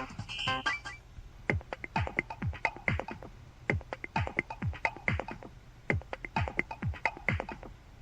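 Electronic dance-style ringtone from a Motorola ZN50 phone: a synth kick drum about twice a second with clicking hi-hats. It begins about a second in, just after a short high melody cuts off.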